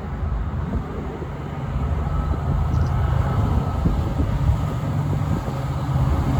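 Diesel locomotives of a freight train approaching, a low engine rumble growing steadily louder.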